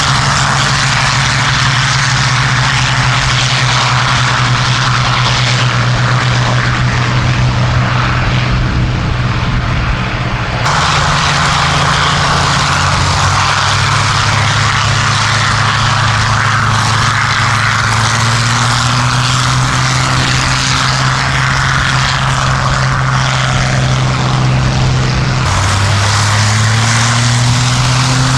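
Several Hawker Hurricanes' Rolls-Royce Merlin V12 piston engines running at take-off power on the formation's take-off roll, a loud steady drone whose pitch shifts as aircraft pass. The sound changes abruptly twice.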